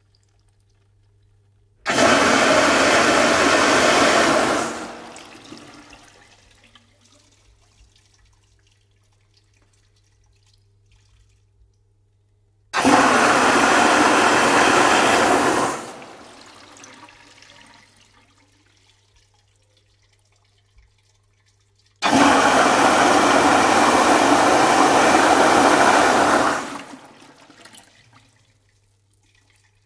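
A urinal flushing three times: each flush starts suddenly as a loud rush of water, runs for three to four seconds, then dies away over a couple of seconds. A faint steady low hum is heard between flushes.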